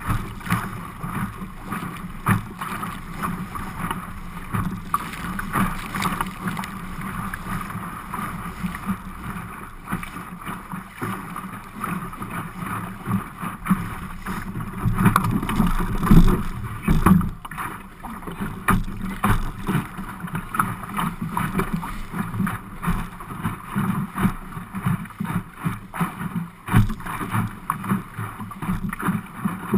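Water rushing and slapping against the hull of an Optimist dinghy sailing through chop, with wind buffeting, uneven and briefly louder about halfway through.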